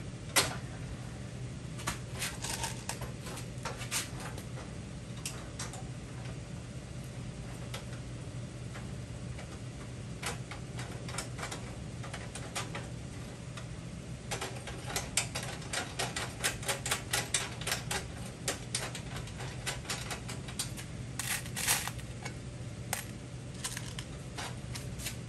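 Irregular light metallic clicks and taps of bolts and steel frame pieces being handled and fitted by hand, coming in scattered clusters.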